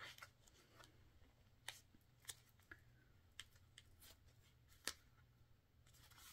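A few faint, irregularly spaced clicks from a pair of grooming shears being handled, the blades opened and closed by hand.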